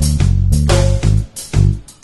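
Electric bass guitar, a red Fender Precision-style bass, plucked in a funk line of short, punchy notes, over a funk backing track.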